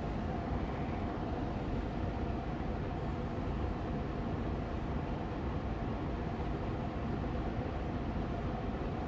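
Austin Air Allergy Machine air purifier fan running steadily on medium speed: an even, gentle hum of rushing air with a faint steady tone in it.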